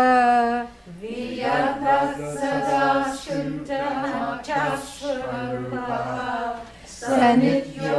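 A group of voices chanting a Sanskrit verse together, unaccompanied and drawn out in long held notes, with a brief pause about a second in.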